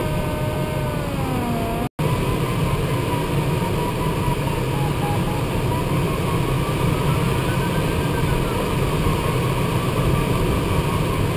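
Steady rush of airflow in the cockpit of a DG300 glider in flight. Underneath it the variometer's audio tone slowly rises and falls in pitch and beeps briefly at times. The sound drops out for an instant about two seconds in.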